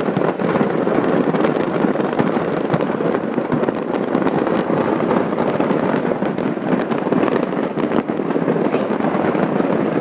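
A dense, unbroken crackle of countless small explosions from stored fireworks going off in a fireworks factory blast.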